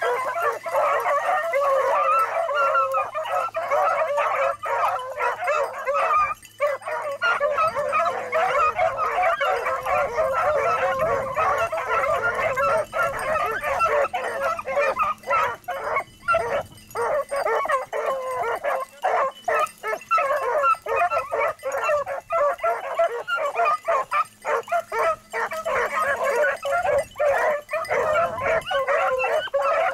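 A pack of beagles baying together in full cry, many voices overlapping without a break, as the hounds run a rabbit's scent trail.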